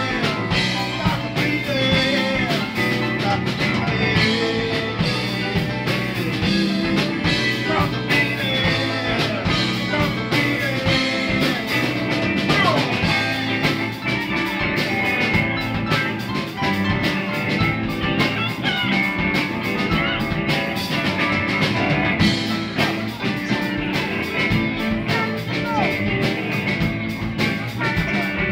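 Live rock band playing, with electric guitars and a drum kit.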